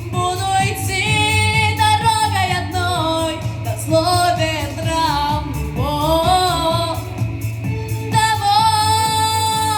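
A young girl singing long, wavering held notes of a pop-style chorus, with pitch glides between them, over a backing track with a steady beat.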